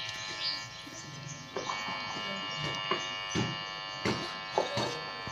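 A steady electrical buzz with many overtones, with scattered knocks from about a second and a half in.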